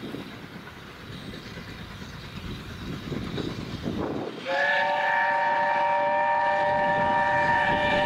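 Steam locomotive running, then its whistle sounds a long, steady blast of several notes at once, starting about halfway through.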